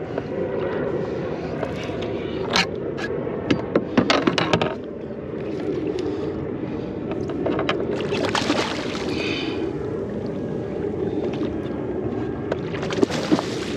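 A conventional fishing reel being cranked to bring a hooked fish up on a kayak, with a cluster of clicks and scrapes about two to five seconds in and a louder scraping patch about eight seconds in, over a steady rushing background.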